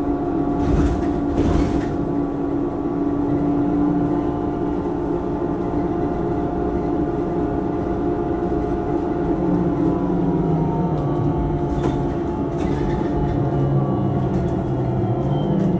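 Inside a moving MAZ-203T trolleybus: the electric traction drive whines steadily over a low rumble of road and body noise, with its tones gliding in pitch as speed changes. A few brief knocks come about a second in and again near twelve seconds.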